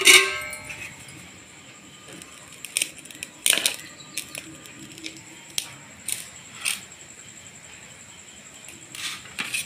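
Stainless steel plates and a steel rice pot clinking now and then as rice is served and eaten, the loudest a ringing metal clink at the start, followed by scattered light clicks.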